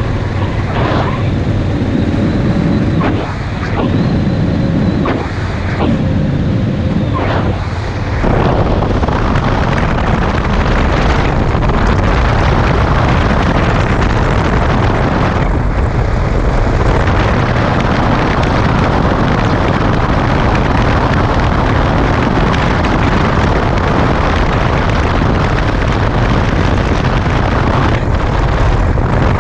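Wind rushing over the microphone of a camera on a motorcycle at road speed, with the motorcycle's engine and tyres running underneath. It dips briefly a few times in the first eight seconds, then holds a steady, loud roar.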